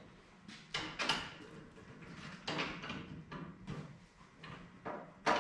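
Plastic race-car body panels being handled and fitted: a string of short scrapes and knocks as the panel rubs and bumps against the nose, with the loudest knock near the end.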